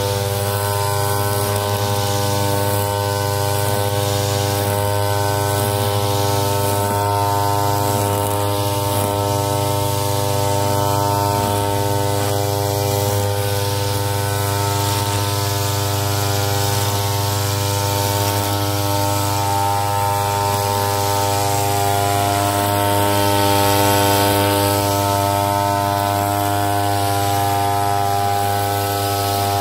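Backpack brush cutter's small petrol engine running at a steady high speed while cutting grass, holding one even pitch throughout.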